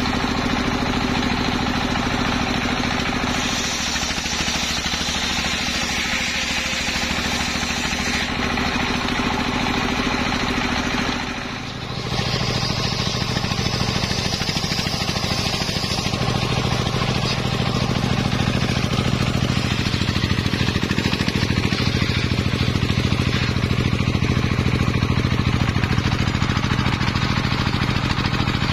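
Stationary engine running a large circular saw blade that rips a waru log into planks: a steady engine drone under the noise of the blade cutting wood. The sound dips briefly and changes about twelve seconds in.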